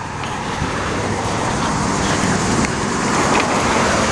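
Road traffic passing close by: a steady rush of car tyre and engine noise that slowly grows louder.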